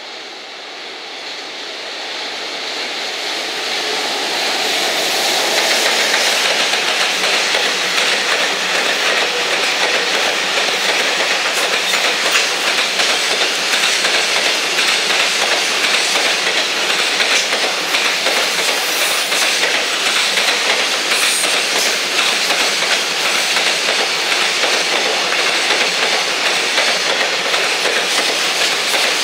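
A JR Freight EF210 electric locomotive and its long rake of Koki container wagons running past. The sound grows louder over the first five or six seconds, then holds at a steady level as the wagons roll by, with a constant rapid clatter of wheels over the rails.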